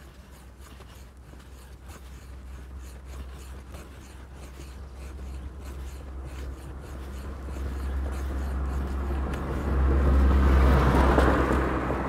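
A motor vehicle approaching and passing close by: its engine and tyre noise build gradually with a low rumble, loudest about ten seconds in, then start to fade.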